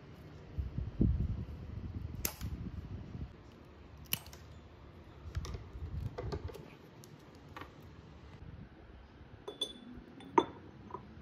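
Objects being handled: scattered light knocks, clicks and rustles, with a low thump about a second in and a sharp click near the end.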